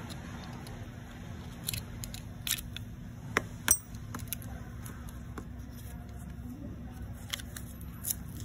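Light clicks and scrapes of a thin metal pick prying a CR2032 coin cell out of a car key fob's circuit board. About three and a half seconds in come two sharp clicks, the second with a brief metallic ring, as the cell pops free.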